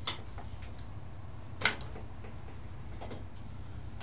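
Hand tools clicking against the bike's parts during carburetor removal on a 1989 Yamaha YZ80 dirt bike: a sharp click just after the start, a louder one about a second and a half later, and a fainter one near the end, over a low steady hum.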